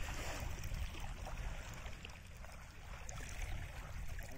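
Wind rumbling on the microphone, with small waves lapping at the water's edge.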